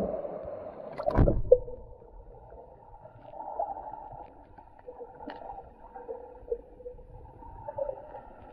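Muffled sound from a camera held underwater in a river: a loud thump about a second in, then faint gurgling and small clicks.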